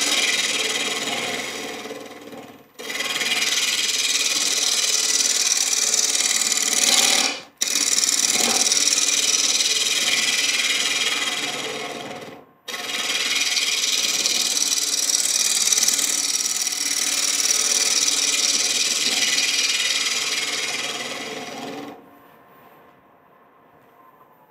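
Carbide roughing tool cutting into a bowl blank spinning on a wood lathe, rough-turning the outside and taking off the high spots: a loud, steady hiss of shavings being cut. It breaks off three times for a moment and stops about 22 seconds in, leaving only the faint sound of the lathe still running.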